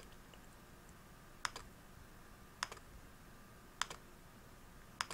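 Computer mouse clicking, five short clicks about a second apart, with faint room hiss between them.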